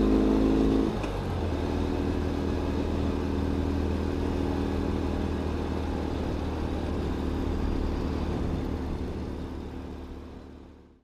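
Ural sidecar motorcycle's air-cooled flat-twin engine running on the road. About a second in the engine note drops and quietens; it then runs steadily and fades out near the end.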